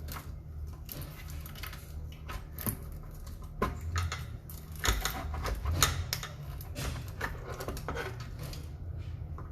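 Irregular clicks, taps and light rattles of hard parts being handled as a ventilator's oxygen-and-air gas module is worked loose during disassembly, with a few sharper knocks around the middle. A low steady hum runs underneath.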